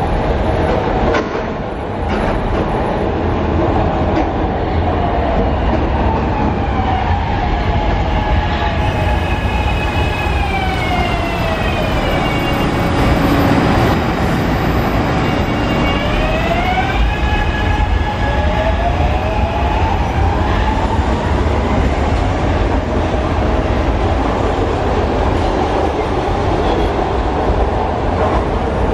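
AdTranz M4 Market-Frankford Line train running through an elevated station over steady wheel-on-rail rumble. Its propulsion whine falls in pitch as it slows and, a few seconds later, rises again as it pulls away.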